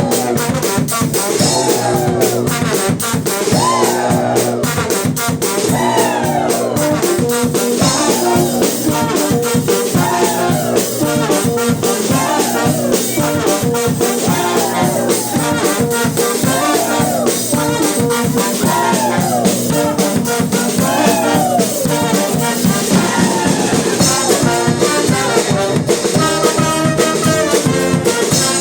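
Brass band (fanfare) playing live with a steady beat, a phrase that swoops up and falls back repeating about every two seconds.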